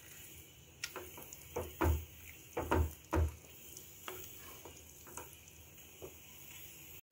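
Wooden spatula stirring and mashing thick, soft-cooked rice and moong dal pongal in an aluminium pressure cooker: soft squelches and scrapes with irregular knocks against the pot, three heavier thumps about two to three seconds in, then lighter taps.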